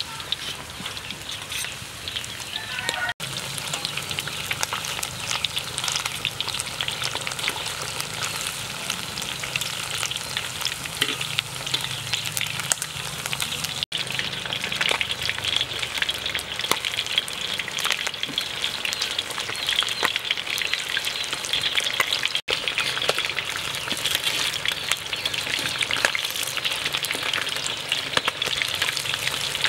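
Battered frog pieces deep-frying in hot oil in a wok: a steady, dense sizzle and crackle of popping bubbles, with metal tongs now and then turning the pieces.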